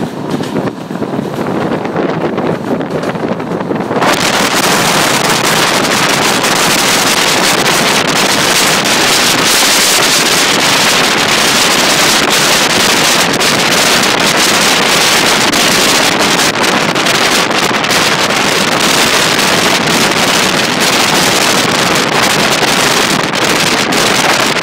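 Wind rushing hard over the microphone from a moving train's slipstream, over the train's running noise, with a steady roar full of crackling buffets. About four seconds in the rush jumps suddenly louder and brighter.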